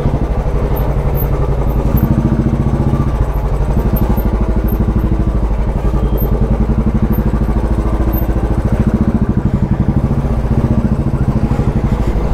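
A Royal Enfield single-cylinder motorcycle engine running at low revs with a steady pulsing beat as the bike creeps through stopped traffic.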